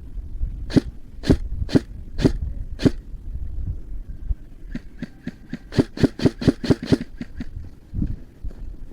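Airsoft gun firing: five single shots about half a second apart, then a faster string of about a dozen shots a couple of seconds later.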